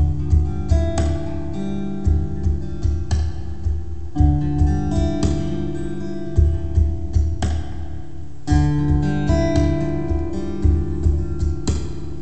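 Acoustic guitar playing a slow instrumental, picked and strummed notes layered over a looper-pedal loop of sustained low notes that repeats about every four seconds.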